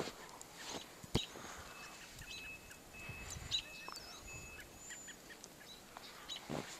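Faint bird chirps and short high whistled notes, with a few scattered crunches of footsteps in deep snow.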